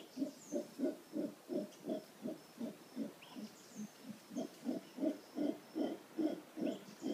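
Howler monkey calling in a steady run of low, rhythmic grunts, about two or three a second, dropping softer a little past the middle and then growing louder again. Faint bird chirps sound above it.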